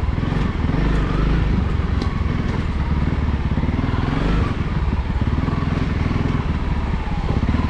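Honda CRF300L's single-cylinder engine running steadily as the dual-sport motorcycle rides along.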